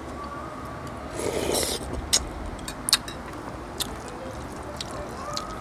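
Eating sounds at a meal: a few short sharp clicks, like utensils against a dish, and a soft wet mouth noise about a second in.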